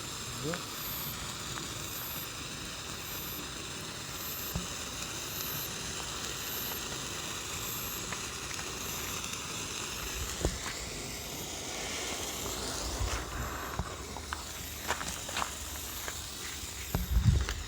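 Hand-held firework burning with a steady spraying hiss, with a few sharp crackles and pops near the end.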